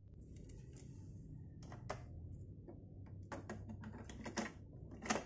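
Plastic clicks and clatter from the cassette deck of a Sanyo M-XW400F boombox as the tape door is popped open and a cassette is handled and loaded. The sharp clicks come one at a time, with the loudest near the end.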